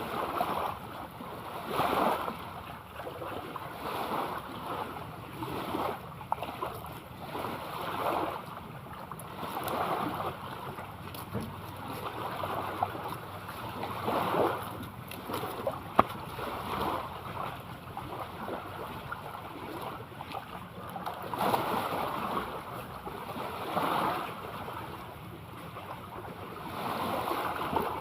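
Sea water sloshing in small waves, a splash-like surge every couple of seconds, with a single sharp click about sixteen seconds in.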